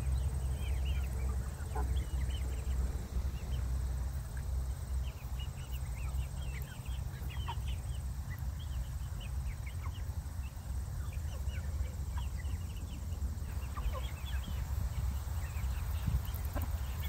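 A flock of young chickens calling as they forage, with many short, high-pitched peeps scattered throughout. A steady low rumble runs underneath.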